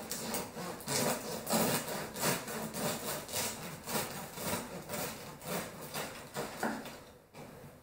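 Serrated Rada bread knife sawing back and forth through a crisp-crusted sourdough sandwich loaf, a rasping stroke about three times a second. The strokes fade out near the end.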